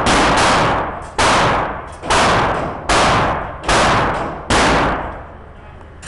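Gunshots echoing in an indoor shooting range: a steady string of about six loud shots, roughly one every second, each ringing on in the hall, stopping about five seconds in.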